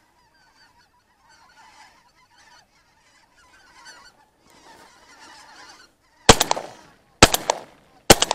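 A flock of geese honking overhead, then three shotgun shots about a second apart, fired up at the flock. The shots are the loudest sounds.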